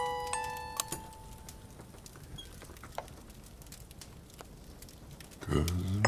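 Wind-up music box plucking its last few chiming notes, which ring out and fade within the first second or two. Small clicks and taps of the wooden box being handled follow. Near the end a deep voice comes in on low held notes.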